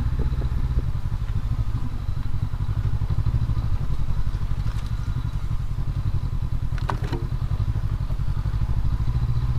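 2019 Honda CB500X's 471 cc parallel-twin engine running steadily as the bike is ridden, a dense even low pulsing. A couple of short sharp clicks come about seven seconds in.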